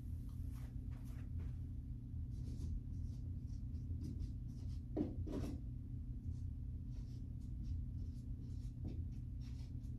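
Marker writing on a whiteboard in a run of short strokes as a word is written out, over a steady low hum.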